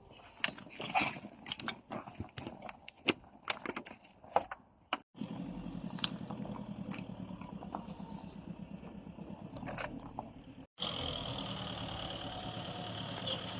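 Clinks and knocks of metal tools and parts being handled during disassembly. After a cut, a steady mechanical running sound with occasional clicks follows, and after another cut a steady running sound with a high whine.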